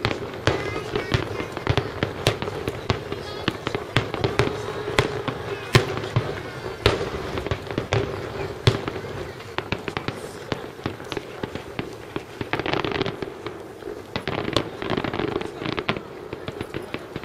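Aerial fireworks shells bursting in quick, irregular succession, with sharp bangs often coming several to a second. In the second half, stretches of dense crackling come from glittering stars.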